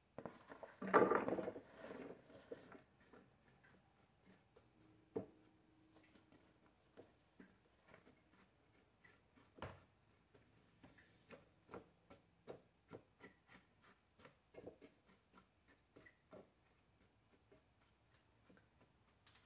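Chopped apple pieces tumbling from a bowl into a metal cake pan, the loudest sound about a second in, followed by scattered light clicks and taps as a silicone spatula pushes the pieces around and levels them in the pan.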